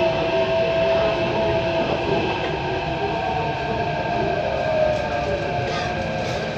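Delhi Metro train heard from inside the carriage: a steady running rumble with a high electric whine. The whine sags slightly in pitch in the second half as the train pulls into an elevated station.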